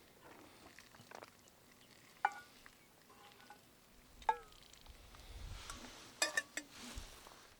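Eating utensil clinking against a bowl: two sharp ringing clinks about two seconds apart, then a quick cluster of clicks near the end.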